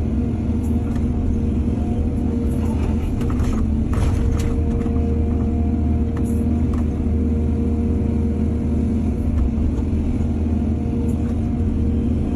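Heavy diesel excavator engine running steadily under load, with a few short knocks and scrapes a few seconds in.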